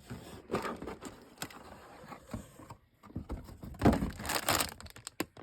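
Cardboard plastic-model-kit boxes being handled and opened: scattered scrapes, knocks and rustling, loudest in a burst about four seconds in.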